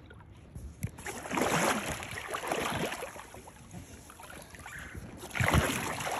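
Water splashing and sloshing in a creek in two stretches, about a second in and again near the end, over the steady rush of the stream.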